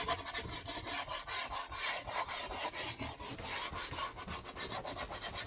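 A brush scrubbing a boat's vinyl upholstery in quick, even back-and-forth strokes, working the cleaner in to lift the dirt.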